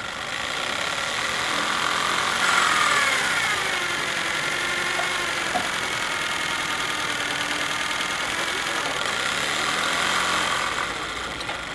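Steam winch on a 2-inch-scale Shay locomotive, driven by a small PM Research 5BI steam engine, running steadily. Its pitch falls about two and a half seconds in, and the sound eases off near the end.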